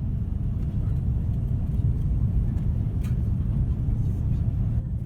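Steady low rumble of an airliner cabin: engine and airflow noise heard from inside the passenger cabin, with a faint tick about three seconds in.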